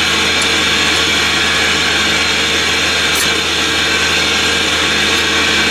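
Steady drone of a running portable air compressor supplying the plant, with a couple of faint clicks from a socket ratchet on a coupling bolt.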